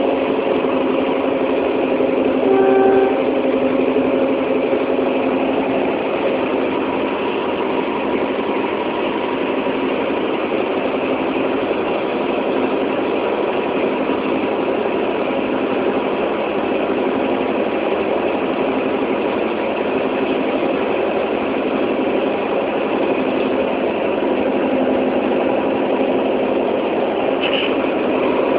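Train engine running steadily with a constant hum. A short pitched tone sounds briefly about three seconds in.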